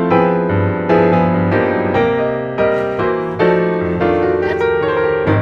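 Background piano music: a slow melody with chords, a new note or chord struck about twice a second.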